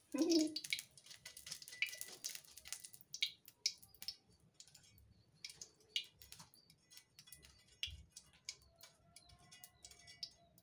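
Leftover hot frying oil in a wok crackling and popping in small irregular ticks after the gas burner has been turned off.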